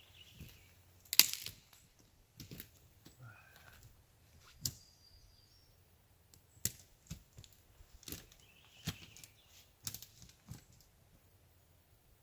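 Footsteps through dry woody forest debris: sticks and twigs cracking and snapping underfoot at irregular intervals, the loudest crack about a second in.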